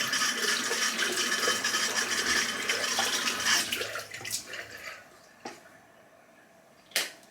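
Tap water running into a sink as something is rinsed under it, dying away about four to five seconds in. A small click and then a sharp knock follow near the end.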